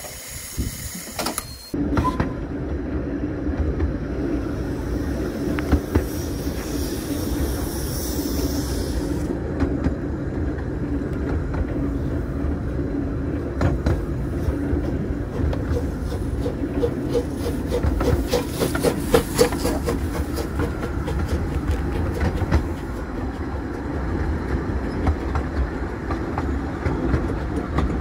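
A passenger train on the 15-inch gauge Ravenglass & Eskdale Railway, heard from a carriage as it is hauled by a steam locomotive: a steady rumble with the clickety-clack of the wheels over the rail joints. For the first two seconds there is instead a high hiss of steam escaping at the cylinders of the standing blue locomotive Whillan Beck.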